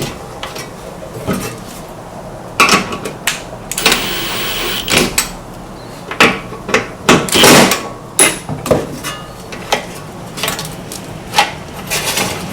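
Clicks, knocks and clatter of metal parts being handled and fitted while a push mower's recoil starter is put back together, with a brief scraping rattle about four seconds in.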